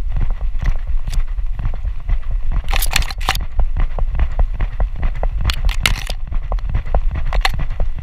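A cocker spaniel puppy's running steps jolting a harness-mounted GoPro: a quick, uneven run of knocks and thuds. Tall grass brushes and rustles against the camera housing, loudest about three seconds in and again around six seconds.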